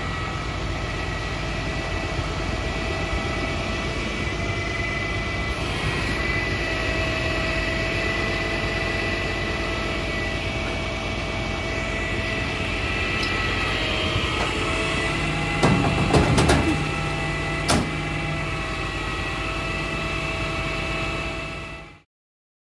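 Altec digger derrick truck running its engine and hydraulic pump steadily, with a high whine over the engine. A few sharp metal clanks come about two-thirds of the way through, and the sound cuts off abruptly just before the end.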